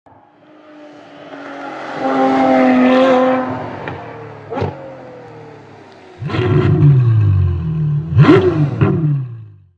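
Car engine revving hard in repeated blips, the pitch falling after each and jumping back up near the end before fading out. Before it comes a swell of sound over the first few seconds and a sharp hit about four and a half seconds in.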